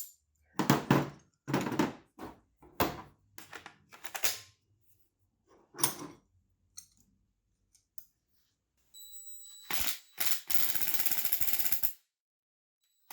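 Metal tool clinks and clacks as the nut on a hood-shock ball stud is started, then about ten seconds in a fast run of ratchet wrench clicking, two to three seconds long, as the nut is run down tight.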